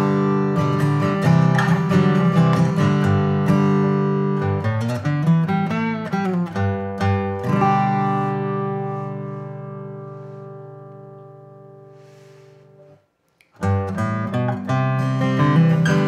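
Taylor 322ce 12-fret acoustic guitar, with a mahogany top and blackwood back and sides, played in chords. About seven and a half seconds in, one chord is left to ring and slowly fade away, then cuts off briefly before the playing starts again.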